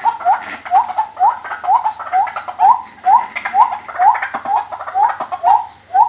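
White-breasted waterhen calling: a steady series of short rising notes, about two a second, with quick light clicks underneath.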